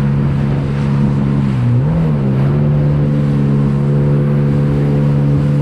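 Jet ski engine running at steady speed over a rushing hiss, its pitch dipping briefly and coming back up about two seconds in.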